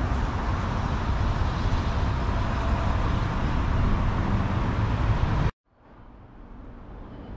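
Steady rumble of outdoor road traffic. It cuts off abruptly about five and a half seconds in, then comes back faintly and slowly grows louder.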